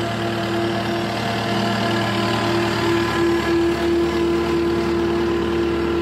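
Cat 259D compact track loader's diesel engine running steadily as the machine drives slowly over sand on its rubber tracks. A steady mid-pitched tone rides on the engine sound, pulsing and growing stronger from about two seconds in.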